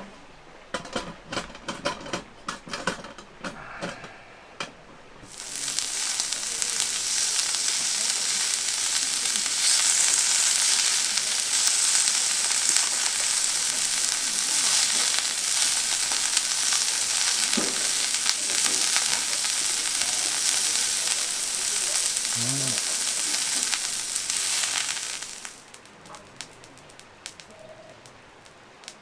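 Food sizzling in hot oil in a pan: a steady loud sizzle starts suddenly about five seconds in and stops suddenly about twenty seconds later. Before it come a few seconds of clicks and knocks.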